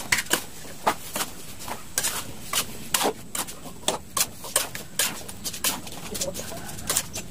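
Metal spatula knocking and scraping against a large metal wok while stir-frying chopped vegetables, in quick irregular clinks about two to three a second.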